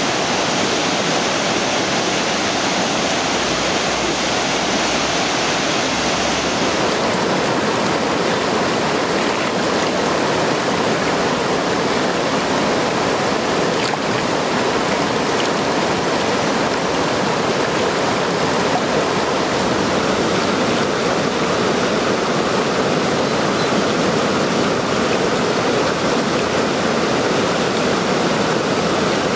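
Steady rush of river water pouring over a dam. The brightest part of the hiss drops away about seven seconds in.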